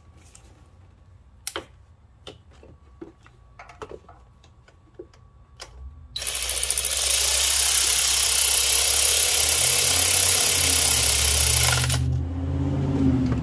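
Faint clicks and taps as a 10 mm bolt is started by hand. About six seconds in, a handheld power tool starts suddenly and runs steadily for about six seconds, driving the bolt in, then cuts off, leaving a lower hum.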